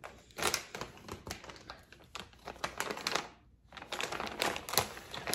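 Plastic blind bag crinkling and crackling as it is torn open by hand, in two spells of rapid crackles with a brief pause a little past three seconds in.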